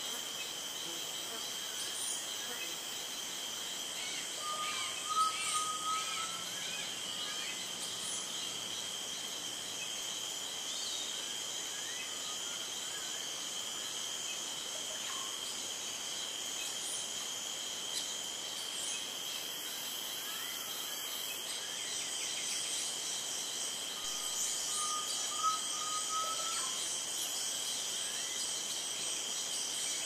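Rainforest ambience: a steady, high-pitched insect drone with scattered bird chirps, and a short whistled bird call twice, about five seconds in and again about twenty-five seconds in.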